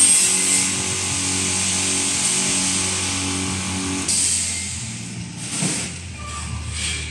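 Automatic drum weighing and filling machine running: a steady hiss with a pulsing hum repeating about one and a half times a second, both cutting off together about four seconds in. Quieter mechanical knocks and a clunk follow.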